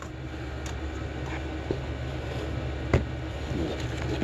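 Steady low electrical hum with a few light clicks and taps from a small carburetor part being handled on a workbench; the sharpest click comes about three seconds in.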